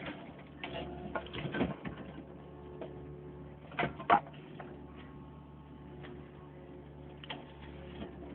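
Backhoe engine running with a steady low hum, with scattered clicks and clanks and two sharp knocks about four seconds in.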